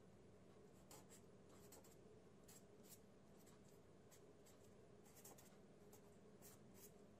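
Faint scratching of a felt-tip marker writing on paper, in many short, irregular strokes.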